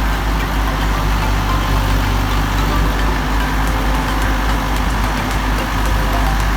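Diesel engine running steadily at a low, even rumble.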